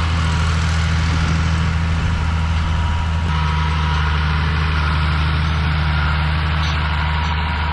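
Tractor engine running steadily at a constant speed, a deep even drone with no change in pitch.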